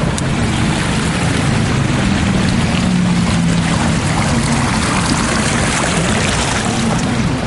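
Shallow floodwater splashing and sloshing as someone wades through it along a street curb, over a low steady hum.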